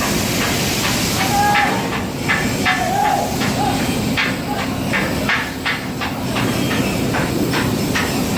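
Steady industrial noise, a loud hiss over a low hum, with irregular knocks and taps every fraction of a second to a second.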